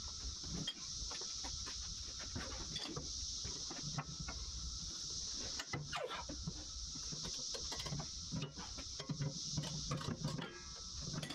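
Cicadas droning steadily in a high continuous buzz, with scattered light clicks and knocks from handling tools and parts on the mower's metal deck.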